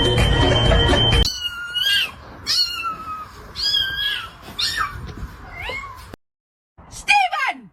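A cat meowing over and over: about five meows that bend up and down in pitch, then after a short break one more meow that falls steeply near the end. A loud noisy sound fills the first second.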